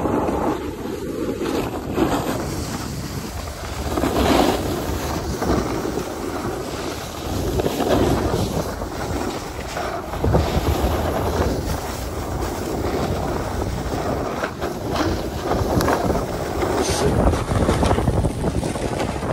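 Wind rushing over the microphone of a camera carried downhill at speed, mixed with snowboard edges scraping packed snow. The noise swells and fades every few seconds as the turns come and go.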